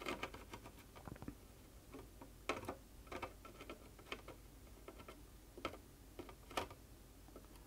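Faint, scattered small ticks and clicks, a handful of them louder, from a soldering iron working Chip Quik removal solder along the legs of a surface-mount chip on a circuit board.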